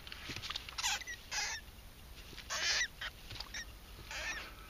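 Rat terrier sniffing hard with its nose at a cornered vole: several short, forceful sniffs at irregular intervals.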